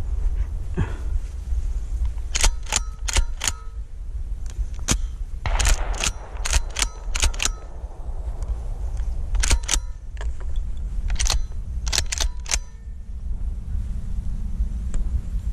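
Irregular series of sharp clicks and knocks, some in quick clusters and several with a brief metallic ring, over a steady low rumble of wind on the microphone.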